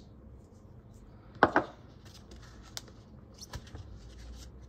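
Handling of small glass mixing bottles with metal screw caps: one loud knock about a second and a half in, then a few lighter clicks and faint rustling as the bottles are moved and set down on a wooden table.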